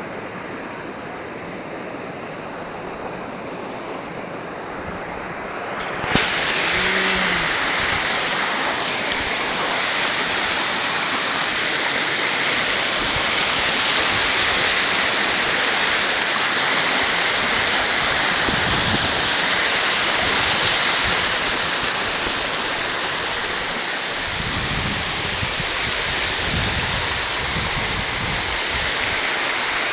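Upper Falls waterfall at Graveyard Fields, a steady rushing of falling water that turns louder and brighter about six seconds in.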